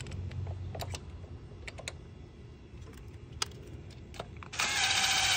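Scattered light clicks and knocks of tools and engine parts being handled, then about four and a half seconds in a hand socket ratchet starts clicking rapidly and evenly, running on past the end.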